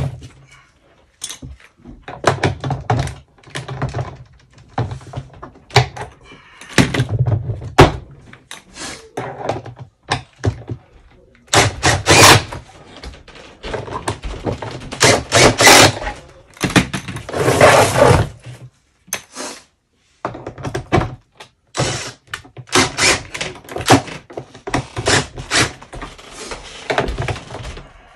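Hands working on a drain-cleaning machine: an irregular run of clacks, clicks and knocks from metal parts and a cordless drill being handled, with a few longer clattering stretches.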